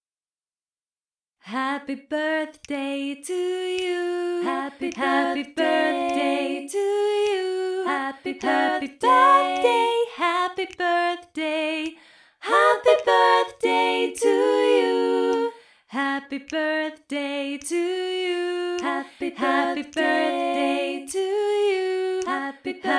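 Several voices, mostly female, singing unaccompanied in harmony in held, steady notes, starting abruptly after about a second and a half of silence.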